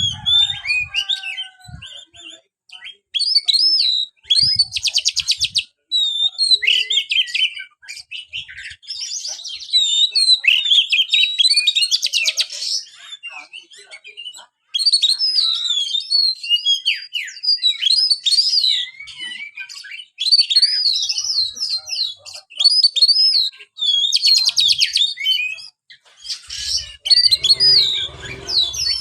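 Oriental magpie-robin (kacer) singing a long, varied song of short whistled and sliding notes, broken several times by rapid buzzy trills.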